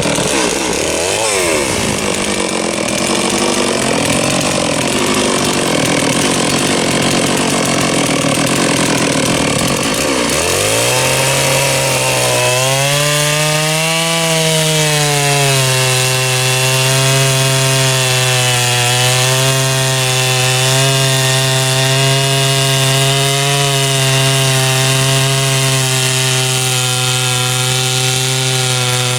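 A big two-stroke chainsaw with a 36-inch bullnose bar cutting through a large log at full throttle. For the first ten seconds or so the engine note wavers. It then settles into a steady pitch under load that dips and recovers now and then as the chain pulls through the wood.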